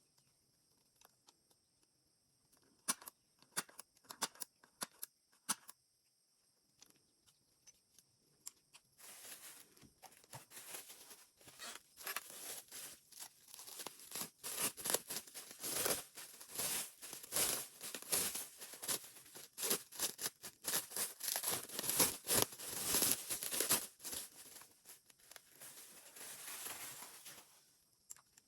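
A few light clicks and taps, then a long spell of continuous rustling, crinkling and tearing of packaging as a doll box is opened and its contents unwrapped by hand.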